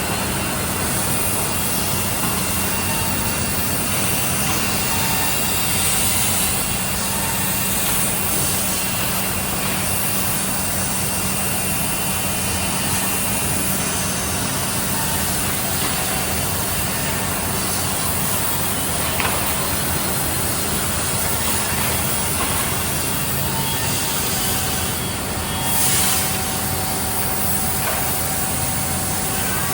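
A 4-axis, 16-spindle CNC wood milling machine running, its spindles cutting wood, with a steady, even noise and a constant hum.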